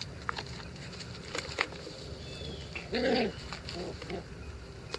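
Month-old Icelandic Sheepdog puppies at play: one gives a short, loud call about three seconds in, followed by two softer ones. A few light taps and rustles come earlier.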